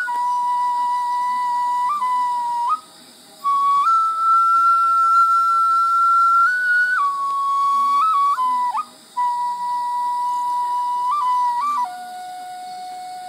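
Tenpuku, a short end-blown Satsuma bamboo flute, played solo: a slow melody of long held notes with brief flicks between them and two short breath pauses. Near the end it drops to a lower, softer note.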